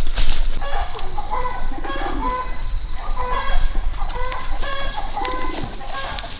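Domestic chickens clucking in a series of short calls.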